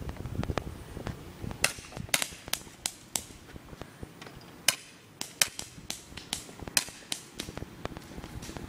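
Airsoft guns firing in a skirmish: a string of about fifteen sharp snaps at irregular intervals, a few tenths of a second to a second apart, starting a second or two in and stopping near the end.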